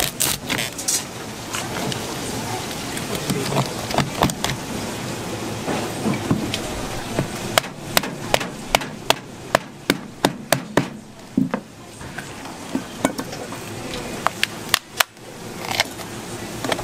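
Repeated sharp chopping knocks on a board, a quick run of about a dozen strikes at roughly three a second in the middle, with scattered single knocks before and after. A steady background din runs underneath.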